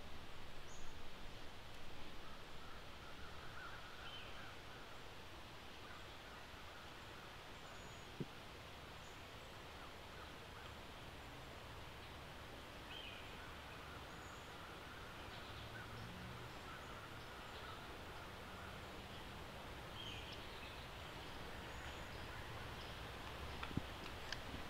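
Quiet woodland ambience: a low steady outdoor hush with faint, scattered high bird chirps and calls, and two faint sharp clicks.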